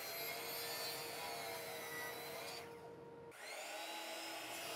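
12-inch Bosch sliding miter saw running and cutting a walnut block at 45 degrees. A little after three seconds in the sound drops out for about half a second, then the saw's motor spins up again with a rising whine.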